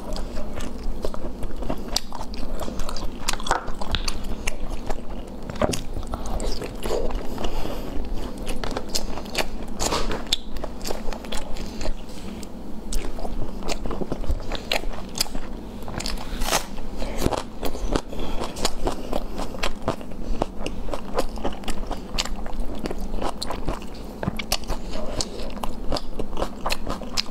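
Close-miked eating sounds: one person biting and chewing, with crunches and many sharp, wet mouth clicks and smacks coming irregularly all the way through.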